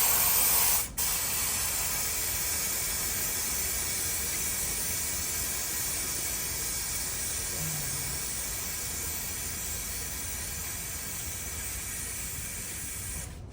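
Aerosol can of Maxima chain cleaner spraying a long, continuous hiss onto a motorcycle chain. It breaks off briefly about a second in, then sprays on steadily and fades slowly as the nearly empty can runs low.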